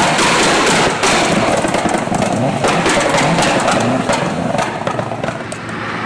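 Loud engine exhaust running and revving, with rapid sharp crackles and pops.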